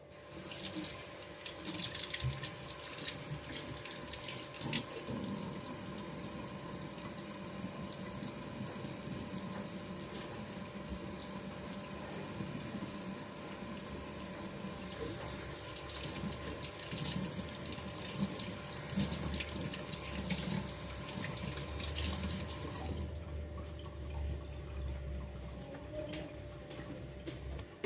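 Water running from a tap into a sink, splashing steadily, then shut off about 23 seconds in.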